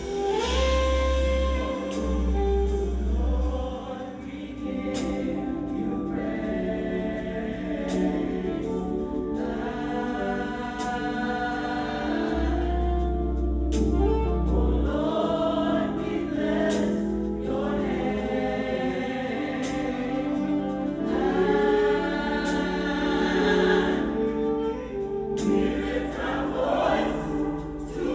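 Gospel choir singing in full voice, with deep bass notes underneath at times and a steady percussive beat.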